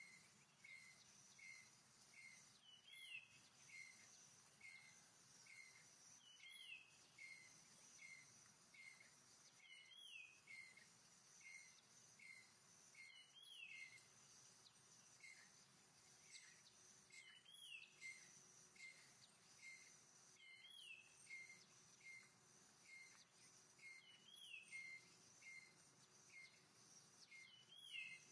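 Faint forest ambience: a bird repeating short chirps about twice a second, with a longer swooping phrase every three to four seconds, over a steady high-pitched insect drone.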